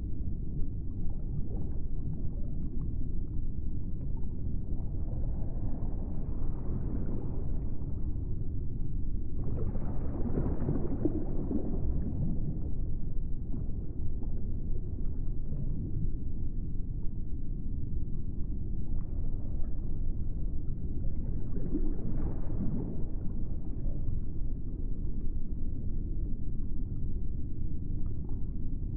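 Ambient soundtrack of a steady low rumble, with brighter swells rising over it three times: about a fifth of the way in, a third of the way in (the strongest), and about three quarters of the way through.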